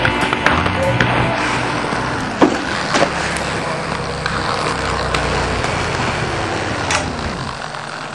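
Inline skate wheels rolling on concrete, with a few sharp clicks, over background music that ends about two-thirds of the way in.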